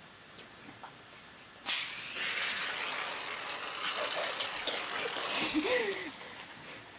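Aerosol whipped-cream can spraying, a steady hiss that starts about two seconds in and lasts about four and a half seconds, with a brief vocal squeal near the end.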